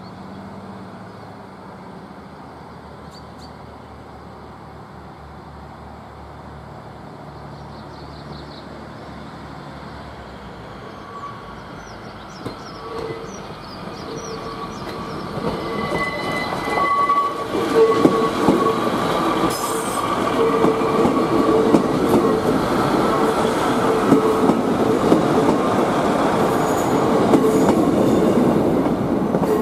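ScotRail Class 153 diesel multiple unit, coupled to a second unit, pulling away and passing close by: a faint diesel rumble for the first ten seconds or so, then the train growing steadily louder as it approaches, and running loud from about halfway through with a sustained whine over the rumble of the engine and wheels.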